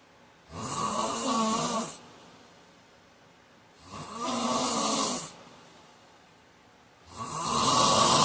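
A man snoring in his sleep: three snores at a regular pace, about three seconds apart, each lasting about a second and a half.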